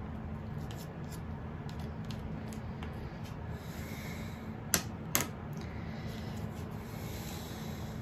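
Light clicks and taps of a measuring spoon working in a small plastic paint cup, with two sharp clicks close together about five seconds in, over a low steady hum.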